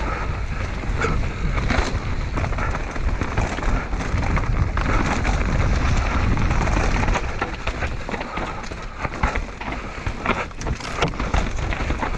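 Mountain bike descending a rocky, rooty dirt trail: tyres rolling and crunching over dirt and stones, with frequent clicks and knocks from the bike rattling over roots and rocks, over a steady low rumble.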